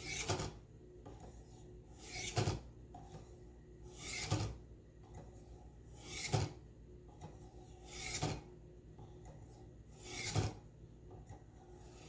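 Buck 119 hunting knife blade drawn through the steel honing rods of a Warthog V-sharpener: six scraping strokes, one about every two seconds. This is the final honing stage after the 1,000-grit diamond rods.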